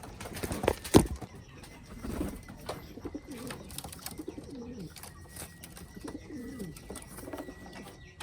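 Domestic pigeons cooing: several low coos that rise and fall in pitch, with a sharp knock about a second in and scattered light taps and clicks.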